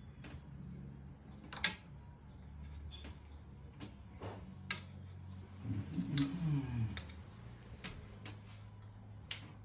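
Irregular light clicks and taps from handling and fitting the metal mounting hardware of a glass panel bath screen, over a low steady hum. A short low wavering sound comes about six seconds in.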